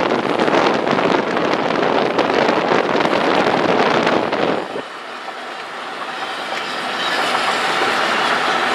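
Double-stack intermodal container train passing close by, its wheels clattering rapidly over the rails. About four and a half seconds in the sound drops suddenly, then builds back up gradually.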